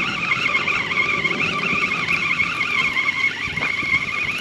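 Spinning reel cranked steadily to reel in a fish after a bite, its gears giving a high, wavering whine.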